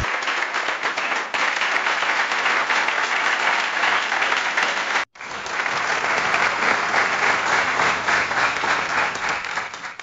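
Two rounds of audience applause: a crowd's sustained applause cuts off about halfway through, and after a brief silence a second audience's applause starts up and carries on.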